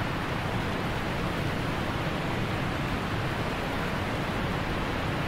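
Steady, even rushing noise like heavy hiss or surf, with no music, speech or distinct events.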